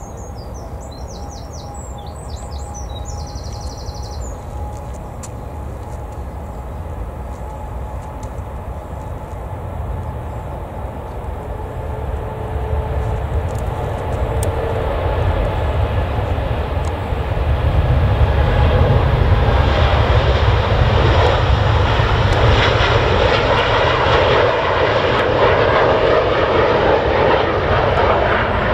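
Jet airliner's engines at take-off power, a deep rumble with a faint whine that grows steadily louder as the aircraft comes closer on its take-off roll, swelling sharply about eighteen seconds in and staying loud to the end.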